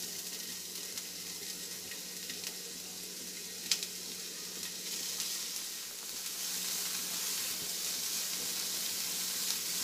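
Chopped onions sizzling in hot oil in a nonstick frying pan as they go in and are stirred with a silicone spatula, a steady hiss that grows a little louder about halfway through. One sharp tap a little under four seconds in.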